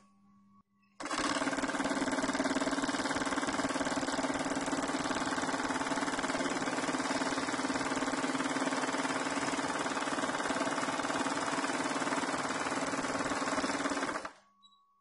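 Three-thread carpet overlocking (serging) machine stitching along an untrimmed carpet edge. It starts about a second in, runs at a steady fast stitch rate, and stops abruptly near the end. A faint steady hum is heard before it starts and after it stops.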